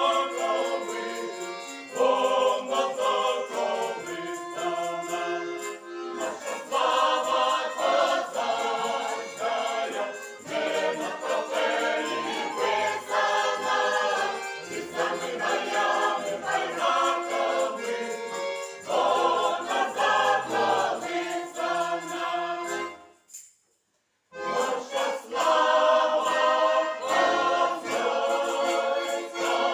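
Folk choir singing a Ukrainian Cossack song in several-part harmony, with bayan (button accordion) and violin accompaniment. The sound breaks off completely for about a second and a half some 23 seconds in, then the singing resumes.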